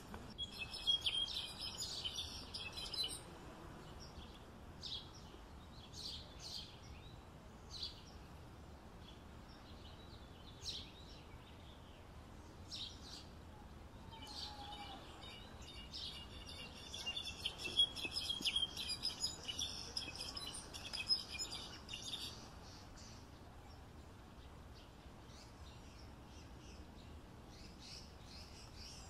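Goldfinch singing: a short run of rapid, high twittering near the start, a few scattered single chirps, then a longer twittering phrase lasting about eight seconds in the middle, over a faint steady background hiss.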